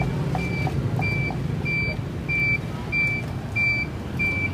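An electronic beeper sounds short, high-pitched beeps at an even pace, about one and a half a second, over a low rumble of street traffic.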